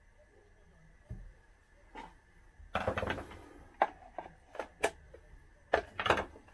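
A plastic chainsaw top cover being handled and pressed into place by hand: a scraping rustle about three seconds in, then several sharp clicks and knocks.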